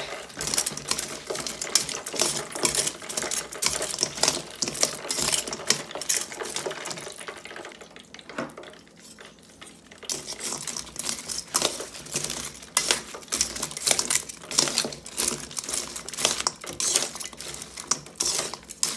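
Metal tongs clinking and scraping against a stainless steel mixing bowl as fried chicken wings are tossed in buffalo sauce: a steady run of small metallic clicks and knocks, quieter for a couple of seconds a little past halfway.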